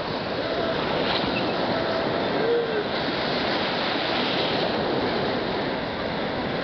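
Sea surf breaking and foaming in the shallows: a steady rush of churning waves.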